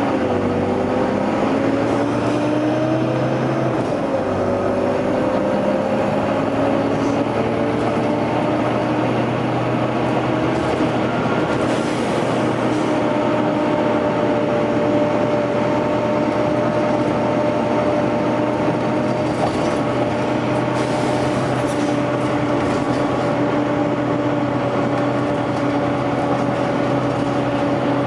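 Volvo B9TL double-decker bus running, its engine and cooling fan giving a loud steady whine. The whine rises over the first few seconds, dips about four seconds in, then holds steady, with a couple of faint short air hisses partway through.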